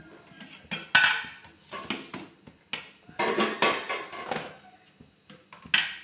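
Kitchenware clattering and knocking in a short irregular series, with the longest stretch about three seconds in and a sharp knock near the end.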